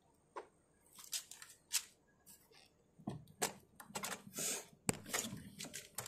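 Irregular clicks, scrapes and rustles of hands handling plastic trim parts and wiring inside an opened car door, growing busier after about three seconds.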